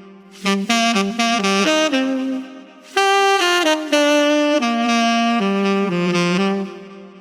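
Unaccompanied saxophone playing a melody of short, quickly changing notes. After a brief pause about two and a half seconds in, a second phrase of held notes follows and fades out near the end.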